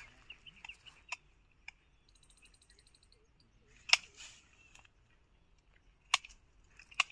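Sharp snips of a hand pruning tool cutting lemon-tree branches: four separate clicks, the loudest about four seconds in.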